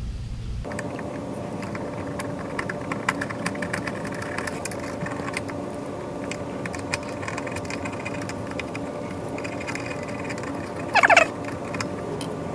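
Small clicks and taps of metal and plastic mower parts being handled during carburetor gasket work, over a steady hum. A short cat meow comes near the end.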